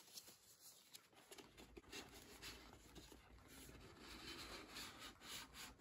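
Near silence with faint handling noises: soft rubbing and light clicks, a little louder in the second half.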